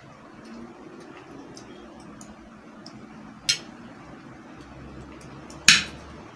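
A spoon clinking against a plate while eating, with a few light ticks, a sharp clink about halfway through and a louder one near the end.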